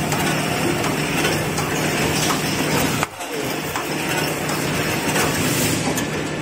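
Toilet paper and kitchen towel production line running: a dense, steady mechanical clatter over a constant low hum, with a short drop in level about three seconds in.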